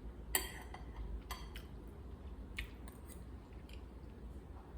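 Cutlery lightly clinking and tapping against dishes while eating: a few scattered clicks, the sharpest with a brief ring about a third of a second in, over a low steady room hum.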